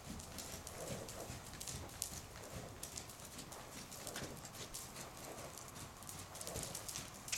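Hoofbeats of a black Hanoverian mare moving loose on an indoor arena's dirt footing: a steady run of short, soft thuds and scuffs.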